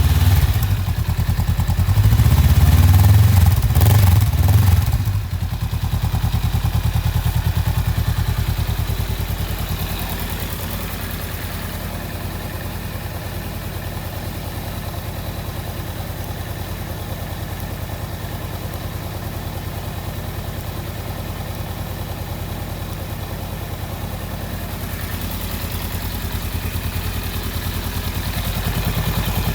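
Honda Rebel 500's parallel-twin engine running, revved a few times in the first five seconds, then settling into a steady idle.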